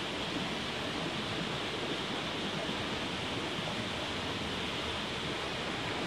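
Steady rushing of flowing stream water, an even hiss with no distinct events.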